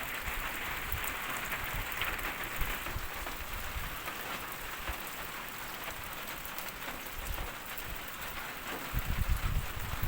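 Heavy rain falling: a steady hiss with many sharp drop ticks. Uneven low rumbling comes in near the end.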